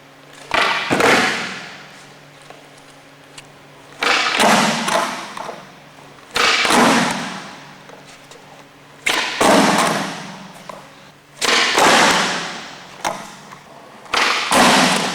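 Skateboard kickflip attempts: a sharp clack of board and wheels hitting the pavement, then a rush of rolling wheels dying away. This repeats about seven times, every two to three seconds.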